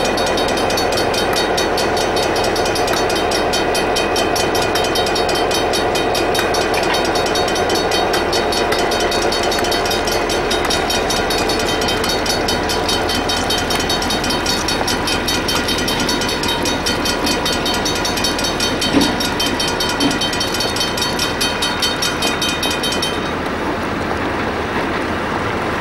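NZR DC class diesel-electric locomotive running steadily as it rolls slowly along station track, its engine giving a dense pitched drone. Two short knocks come about three-quarters of the way through, and the higher part of the engine sound fades away near the end.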